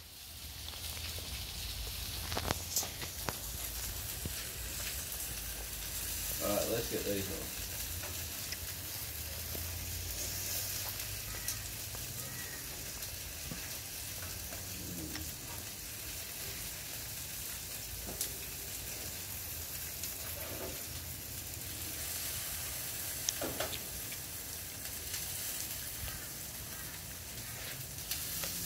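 Meat sizzling on a barbecue grill, a steady hiss with a few sharp pops.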